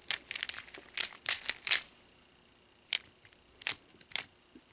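Plastic 3x3 Rubik's cube layers clicking as they are turned fast through an H-perm algorithm: a quick run of clicks for about two seconds, then a few single clicks after a short pause.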